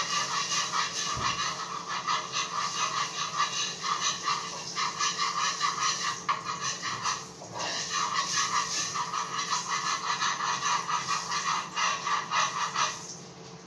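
Curry powder sizzling and crackling in hot oil in a pot, the Jamaican step of 'burning the curry' before the meat goes in. It eases briefly about halfway through and stops shortly before the end.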